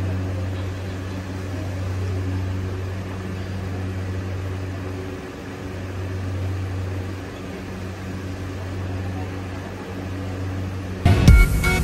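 Steady low hum with a buzzing overtone, then dance music starts suddenly with a loud bass hit near the end.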